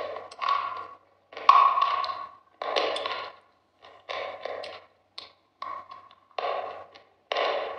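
Close-miked crunching and chewing of a crisp white food in the mouth: about ten sharp crunches, roughly one every half second to second, each dropping off to silence before the next.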